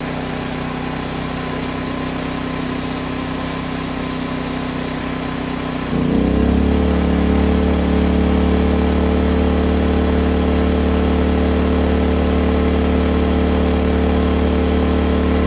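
Champion dual fuel inverter generator running on propane in eco mode, idling steadily, then about six seconds in speeding up to a higher, louder steady speed: the eco-mode throttle responding automatically as a battery charger load is switched on.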